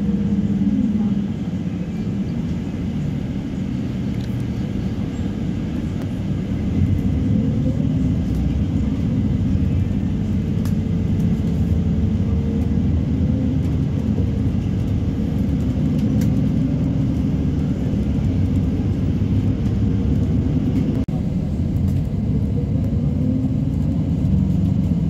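Bus driving, heard from inside the passenger cabin: a steady low rumble of engine and road noise, with a faint engine tone that slowly rises and falls.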